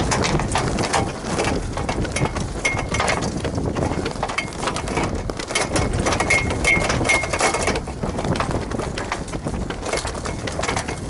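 Strong wind buffeting on the deck of a sailing yacht, with sail cloth flapping while the sails are being lowered in a rising wind. Short high squeaks come through a few times, mostly in the middle.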